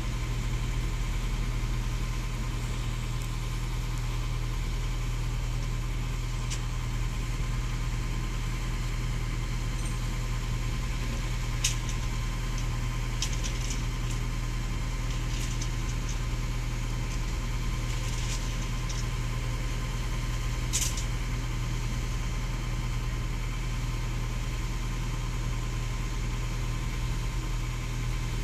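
Hydraulic excavator's diesel engine running steadily at a low, even rumble. A few short sharp knocks come through the middle, the loudest about two-thirds of the way in.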